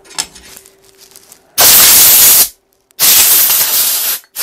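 Two loud hissing blasts from a pressurised jet on the cleaned SU carburettor parts, the first about a second long and the second a little longer, with a third starting at the very end.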